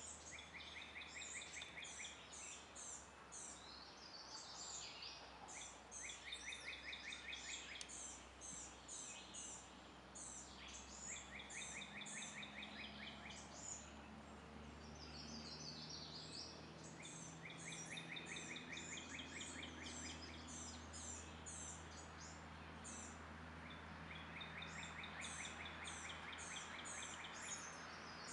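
Faint birdsong: short high chirps in quick series of four or five, alternating every few seconds with a rapid trill lasting a second or two.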